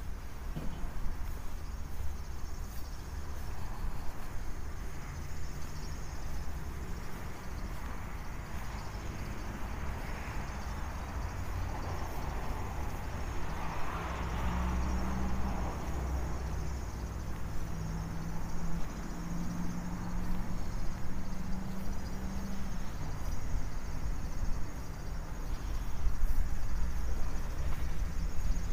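Outdoor ambience with a steady low rumble and a faint high hiss; a vehicle passes, building to its loudest about halfway through and fading again.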